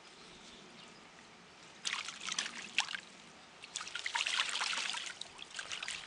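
A white call duck splashing water with its wings as it bathes, in two bouts: a short one about two seconds in and a longer one about four seconds in.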